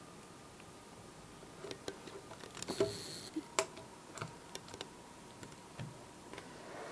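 Scattered small clicks and taps of laptop parts being handled during a screen replacement, with a short rustle about three seconds in.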